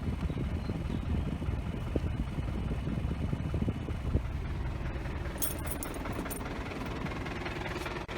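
Isuzu D-Max pickup engine idling steadily with the air conditioning switched on, while the AC compressor's magnetic clutch stays disengaged, so the compressor does not run. The fault is that the AC gives no cooling.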